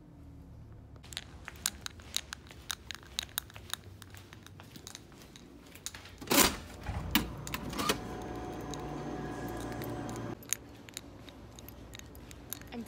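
Footsteps and clicks of a phone being handled while walking, then a loud clunk about six seconds in as a door's push bar is pressed and the door opens. A steady hum follows for about two seconds and stops suddenly, then more scattered clicks.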